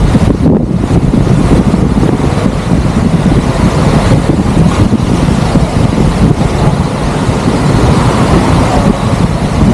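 Loud, steady rumble of wind buffeting the camera's microphone, with no separate sounds standing out.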